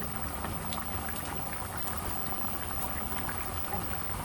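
Food cooking on the stove: a steady hiss with faint scattered pops, as onions fry and curry cooks in oil.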